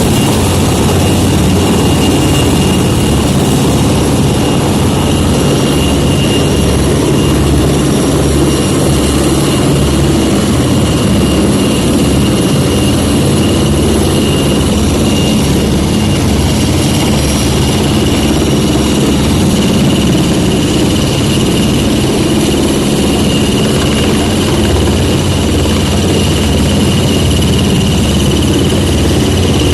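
Helicopter running steadily and loud: a rapid low rotor beat under a constant high turbine whine.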